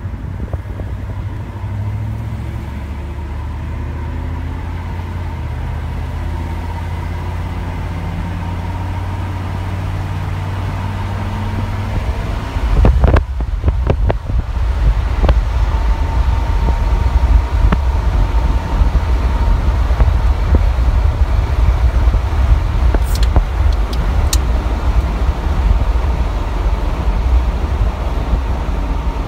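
Car driving along a road, heard from inside: a steady engine and road hum. About 13 seconds in it turns into a much louder, rough low rumble with sharp peaks, wind buffeting the microphone at speed.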